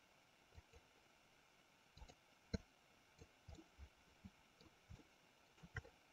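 Near silence with faint, irregular clicks of a computer mouse, about fifteen short ones, the loudest about two and a half seconds in.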